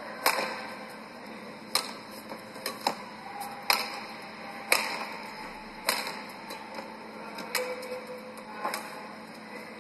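Badminton rackets striking a shuttlecock back and forth in a long rally: sharp cracks at about one a second.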